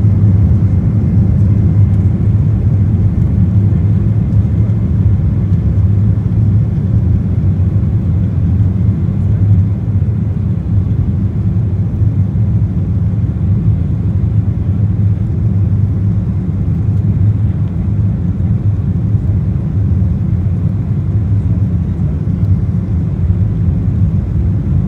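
Cabin noise aboard an Embraer 190 taxiing on the ground: a steady low rumble from its GE CF34 turbofans at low thrust and the airframe rolling over the pavement, with no spool-up for takeoff.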